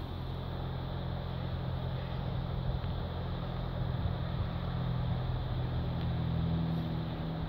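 Steady low hum of a running engine, with a few higher tones joining about six seconds in.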